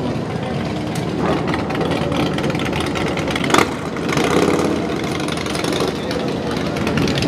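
Motorcycle engine running steadily at idle. There is one sharp knock about three and a half seconds in.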